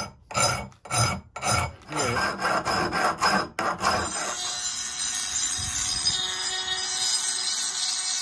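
Hand file scraping in repeated strokes across the steel head of a Rinaldi Milano carpenter's axe, about two or three strokes a second. From about four seconds in, a handheld rotary tool runs steadily with a high whine as it grinds at the axe head.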